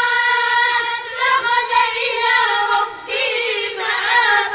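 Children's voices reciting a Quran verse in melodic murottal chant, with long held, wavering high notes.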